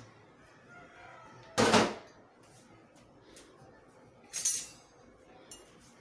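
Kitchenware being set down or handled: two short clattering knocks, the louder about a second and a half in and a second, brighter one about four and a half seconds in.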